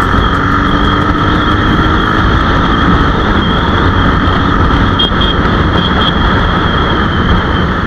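Vehicle riding along a road, its engine running steadily under a heavy low rumble of road and wind noise.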